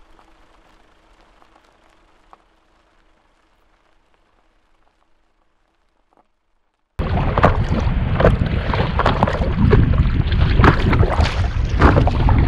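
A faint steady hum fades away. About seven seconds in, loud wind rushing over an action-camera microphone and water splashing around a stand-up paddle board cut in suddenly and carry on, full of sharp splashes.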